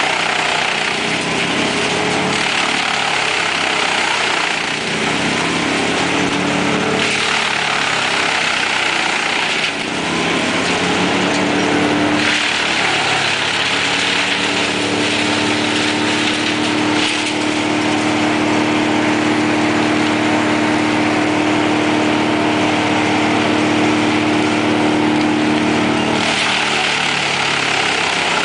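Truck-mounted Bruks wood chipper running under load as its crane grapple feeds in branches: a steady engine hum that dips and rises in pitch during the first ten seconds and then holds level, over a constant rushing noise of the chipping.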